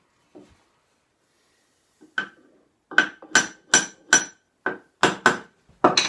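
A hammer tapping a wooden plane to set its iron deeper: about ten sharp taps with a short ring, a couple of single knocks and then a quicker run of taps from about three seconds in.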